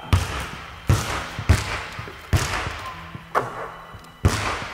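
Basketballs bouncing on a hardwood gym floor: about six heavy thuds at uneven intervals, each ringing out with the hall's echo.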